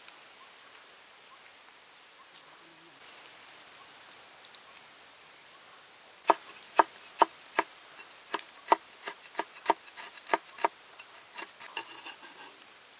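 Cleaver chopping red chillies on a wooden board: a run of sharp knocks, about two to three a second and growing quicker, starting about halfway through, after a stretch of faint background hiss.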